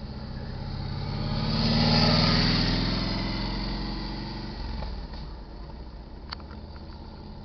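A motor vehicle drives past, its engine and tyre noise swelling to a peak about two seconds in and then fading away. A small click comes near the end.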